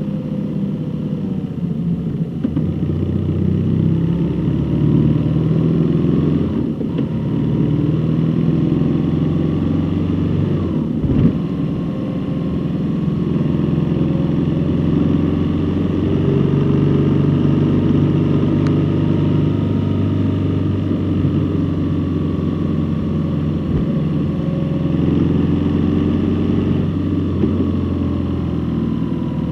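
A road vehicle's engine running steadily while driving, its pitch slowly rising and falling with changes of speed, with a brief knock about eleven seconds in.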